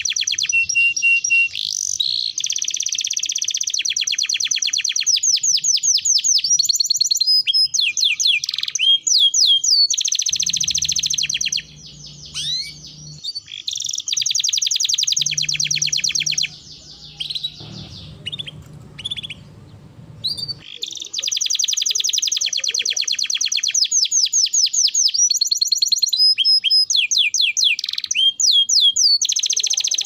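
Domestic canary singing a long song of rapid trills and quick rising and falling notes, with a short break a little over a third of the way in and a longer pause in the middle before the trilling resumes.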